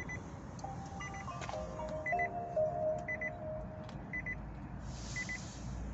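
Nissan Leaf ZE0's power-on chime: a short melody of soft electronic tones stepping up and down, played as the car is switched on, with small groups of quick high pips repeating through it.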